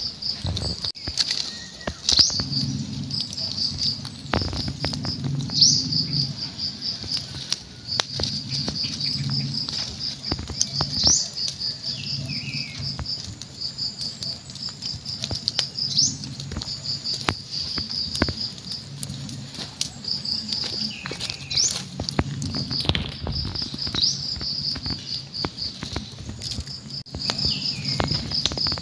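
Kittens scuffling and pouncing on dry leaves and dirt, with light patter, rustles and clicks from their paws. Behind it insects chirp in a steady high rapid trill, with a few short rising chirps and a low hum underneath.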